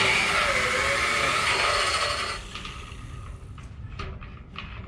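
A small electric grinder runs for about two seconds, grinding the carbide tooth inserts of a circular sawmill blade to sharpen them, then winds down, followed by a few light metallic clicks.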